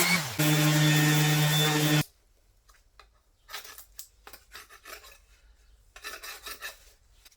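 An electric power tool's motor runs steadily, dips briefly, then cuts off about two seconds in. Irregular hand rubbing or scraping strokes on wood follow, in short patches.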